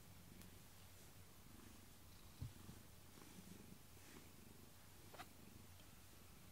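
Domestic cat purring faintly and steadily as it is stroked, a low pulsing rumble. A soft low thump about two and a half seconds in and a small click about five seconds in.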